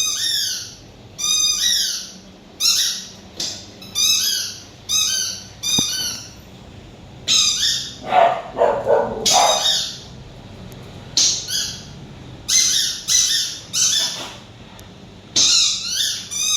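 A dog's noise-making toy sounding over and over: about a dozen short, high-pitched calls, each under a second and sliding in pitch, with a lower, rougher sound about halfway through.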